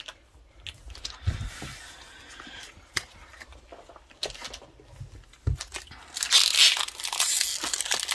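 Scattered small taps and clicks of cards being handled, then, about six seconds in, the loud crinkling and tearing of a foil Pokémon booster pack wrapper being opened.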